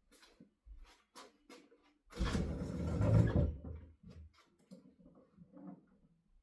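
Handling noises: a few light clicks and knocks, then a rustling scrape lasting about a second and a half, then more faint knocks.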